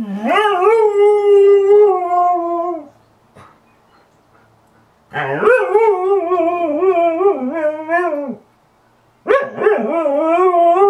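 A dog howling: three long, wavering calls, the first at once, the second about five seconds in, and the third starting near the end.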